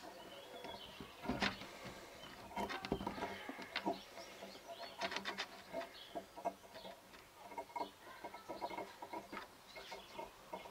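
Small irregular clicks and taps of a metal crocodile clip and wire being fiddled with in the fingers, as the stripped wire end is pushed at the clip's hole.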